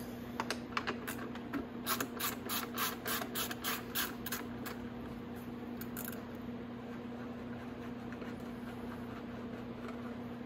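Socket ratchet clicking in quick, uneven runs as it backs out a headlight mounting bolt, stopping a little under halfway through. A steady low hum runs underneath.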